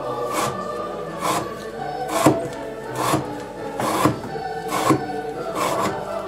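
Elmax-steel knife slicing through rope again and again, seven short rasping cuts about one a second, over background music.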